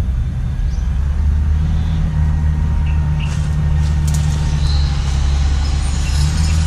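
Steady low rumble throughout, with a few faint, short high chirps here and there.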